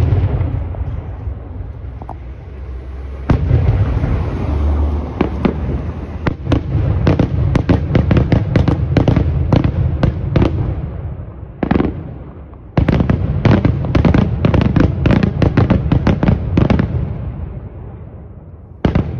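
Aerial fireworks display: shells bursting overhead in rapid runs of sharp bangs over a low echoing rumble. There is a brief lull about two-thirds through, then another dense volley that fades away, with one last bang near the end.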